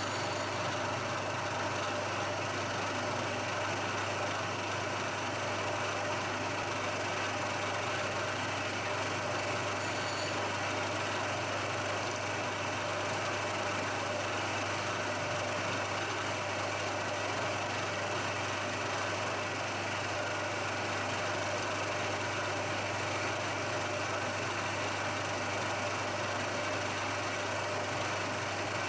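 Milling machine running steadily with a constant hum, its spindle driving a drill into aluminium stock.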